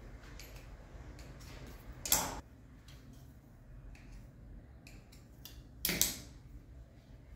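Light clicks and taps of hands and a knife on a granite countertop as coils of raw dough are pressed and loose strands trimmed off. Two louder short scrapes come about two seconds in and again near six seconds.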